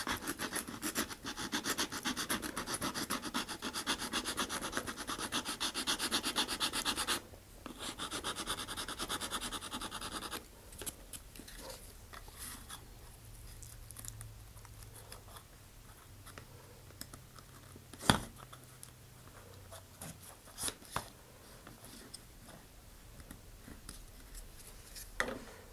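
Small hand file rasping in rapid strokes at the notch of a laser-cut centering ring, steadily for about seven seconds, then after a short pause for about three seconds more. After that come only quieter sounds of parts being handled, with one sharp click about two-thirds of the way through.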